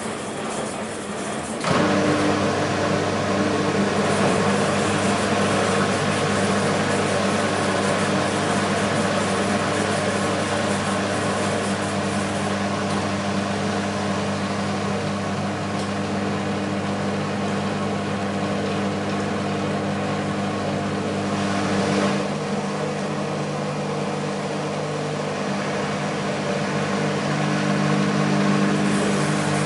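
BEKO WMB 51441 front-loading washing machine: its drum motor starts suddenly about two seconds in and then runs with a steady, even hum. The hum changes pitch about 22 seconds in.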